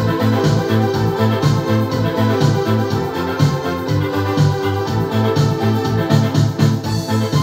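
Yamaha PSR-S750 arranger keyboard played with both hands: a continuous keyboard piece over a bass line that repeats at an even pulse, about two notes a second.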